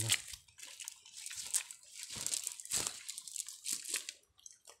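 Plastic bag crinkling and rustling in irregular bursts while small fish are picked out of a net and dropped into it.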